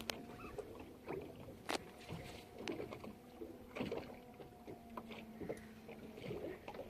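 Fishing-boat deck sounds: scattered short clicks and knocks over a faint steady hum and water noise.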